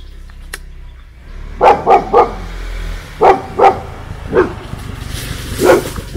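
A dog barking: seven short barks, three in quick succession, then a pair, then two single barks.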